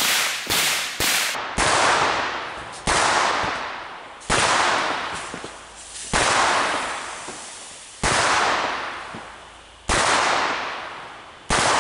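Shots from a semi-automatic .22 Long Rifle rifle: three or four quick shots in the first second, then seven single shots about one and a half to two seconds apart, each trailing off in a long fading rush.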